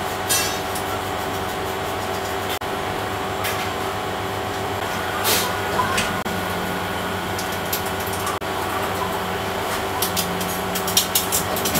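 A steady mechanical hum with a few scattered light clicks and taps, which come quicker near the end.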